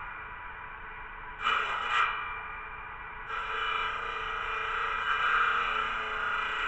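Prototype safety circular saw for thick branches, driven by an electric motor, running with a steady whine and cutting through a branch: a short cut about a second and a half in, then a longer, louder cut from about three seconds in.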